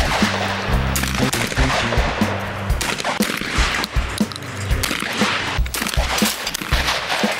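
Benelli Cordoba semi-automatic shotgun firing a string of shots, over background music with a bass line and a steady beat.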